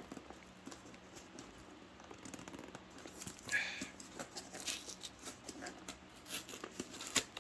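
Cardboard retail box being pulled open by hand: faint scrapes and small taps of the flaps, with a brief high squeak about three and a half seconds in.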